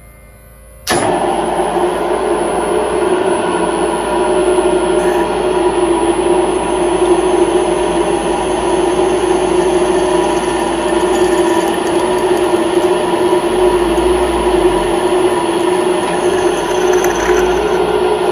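Cincinnati Toolmaster 1C milling machine switching on abruptly about a second in, then running steadily with a strong hum while a twist drill in its spindle bores into a metal plate.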